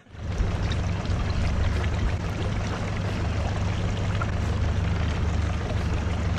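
Fishing boat's motor running steadily at trolling speed, a low hum with the rush of water and wind over it.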